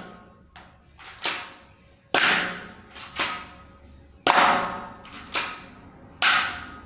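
BB air pistol firing a rapid series of sharp shots, about ten in all, some much louder than others, each ringing briefly in a small hard-walled room.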